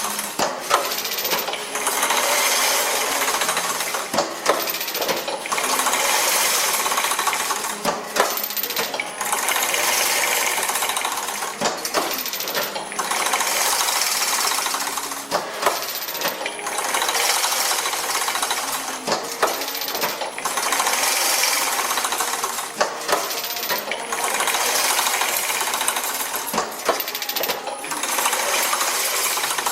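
Automatic chain-link mesh machine running, with a metallic clattering that repeats in a cycle of about one every four seconds. Each cycle begins with a brief lull.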